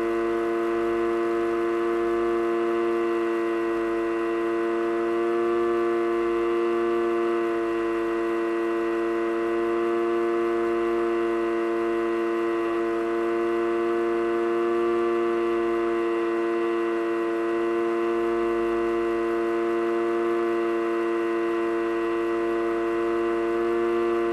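Motor and propeller of a radio-controlled FPV model aircraft, heard from on board, running at steady throttle: a loud, even whine with several harmonics and no change in pitch, over a low rumble.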